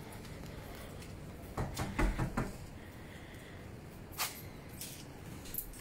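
A quick run of four or five sharp knocks and clacks about two seconds in, then a single click a couple of seconds later, over quiet outdoor background noise.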